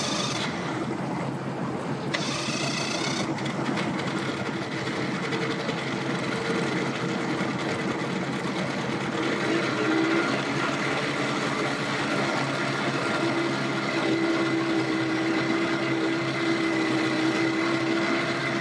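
Small outboard motor running steadily at low speed on a launching boat, its pitch stepping up a little about ten seconds in.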